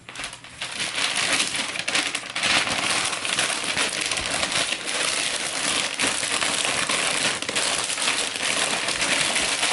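Paper crinkling and crumpling continuously as it is wrapped around a snow globe.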